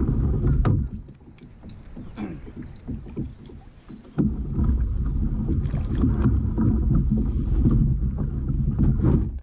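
Nucanoe Frontier 12 kayak hull rumbling, scraping and knocking close to the camera as it is boarded and pushed off. Loud at first, then a few seconds of quieter scattered knocks, then loud again from about four seconds in until it stops suddenly near the end.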